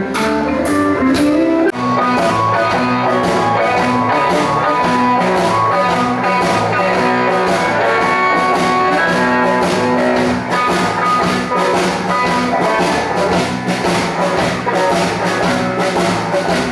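Live rock band playing: guitar lines over a steady drum beat.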